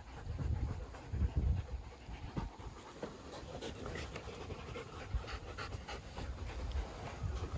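Wolfdog panting close up, open-mouthed and out of breath from play-chasing.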